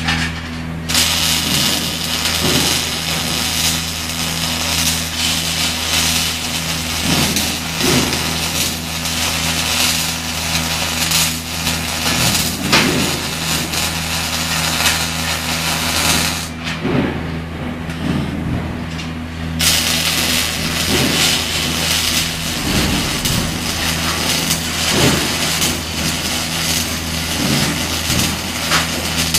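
CO2 (MIG/MAG) welding arc crackling and sputtering as a bead is laid, starting about a second in, stopping for about three seconds past the middle, then striking again. A steady low hum runs underneath.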